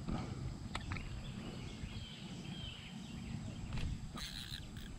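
Quiet outdoor ambience: a steady low rumble on the microphone, with a faint bird chirping in the middle. A few light clicks and a short rustle come near the end.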